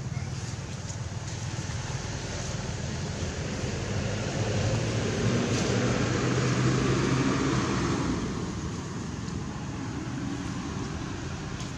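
Low steady traffic rumble, with a motor vehicle's engine growing louder about four seconds in and fading away again around eight seconds, as if passing by.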